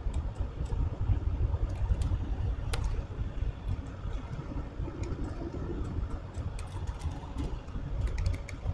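Scattered sharp clicks of a computer mouse and keyboard keys over a steady low rumble of background noise.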